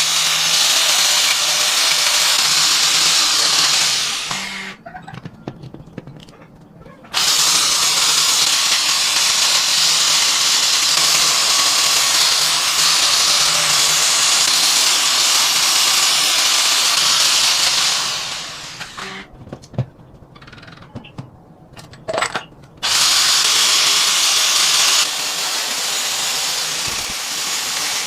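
A power tool running with a loud, even, hissy noise without a clear pitch. It stops twice for a few seconds, about five seconds in and again past the middle, and starts up again abruptly each time.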